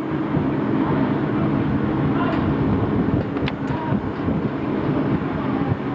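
Heavy machinery running steadily with a low hum, with a few light metallic clinks about halfway through.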